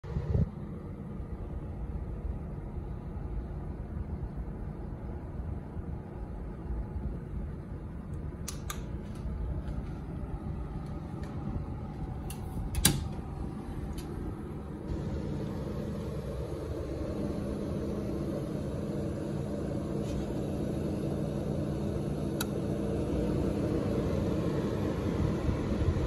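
1966 Frigidaire Prestige AEP 8MK window air conditioner running, with a steady hum and the rush of its fan. A few sharp clicks come through, the loudest about halfway, and the air noise grows louder from a little past halfway.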